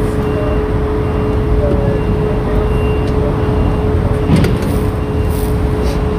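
An engine running steadily, a constant hum over a low rumble, with a few light clicks about four seconds in as a seatbelt is handled.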